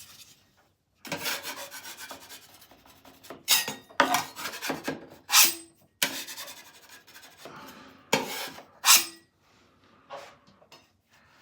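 Hand-sanding a drywall patch: irregular rubbing strokes of abrasive on the dried surface, a few of them sharper and louder, stopping about a second and a half before the end.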